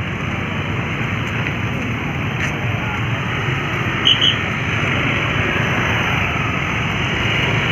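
Steady wash of road traffic noise mixed with the indistinct murmur of a crowd on foot, with two quick high-pitched chirps about four seconds in.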